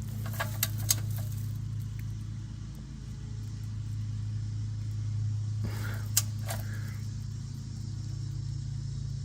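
Hand tools clicking on the underside of a Toyota Tundra as the oil drain plug is tightened: a few sharp clicks about half a second in and a short clatter around six seconds in, over a steady low hum.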